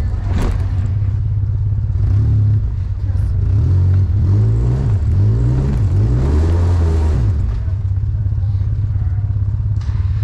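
Polaris RZR 800 S side-by-side's engine running and revving up and down as it works over a steep rock ledge, with a sharp knock about half a second in.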